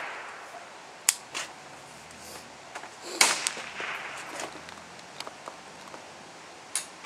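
Two single rifle shots from a 5.56 mm AR-15, one about a second in and a louder one about three seconds in. Each crack is followed about a third of a second later by a fainter crack. A few faint pops follow near the end.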